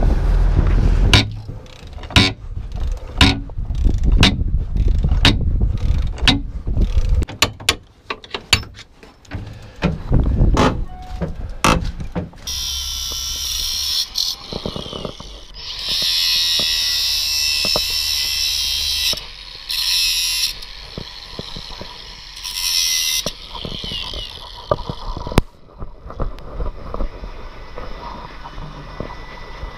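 A run of sharp metal knocks and clanks, then a cordless angle grinder cutting steel under a truck: a loud, high whirring grind in several runs of a few seconds each, stopping and starting, until it stops a little after two thirds of the way through.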